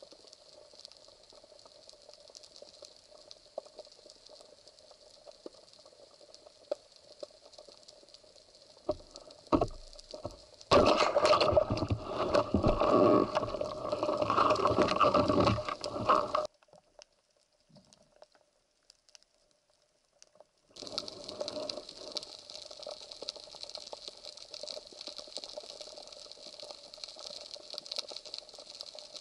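Underwater ambience over a rocky reef, a faint steady crackling hiss heard through the camera housing. About eleven seconds in, a loud rush of water noise lasting about five seconds as the diver swims up toward the surface. It cuts off to near silence for a few seconds before the faint underwater crackle returns.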